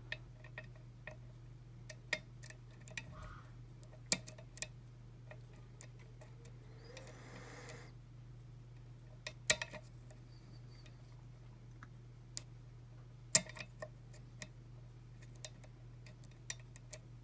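Lock pick and tension wrench clicking against the pins of a pin-tumbler challenge lock that has undercut security pins. The clicks are irregular and sharp, with a couple of louder ones, over a low steady hum.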